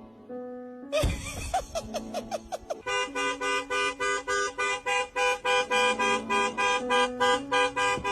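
Music: a sharp hit about a second in, a quick run of falling notes, then a horn-like electronic melody of short notes repeated evenly about five times a second.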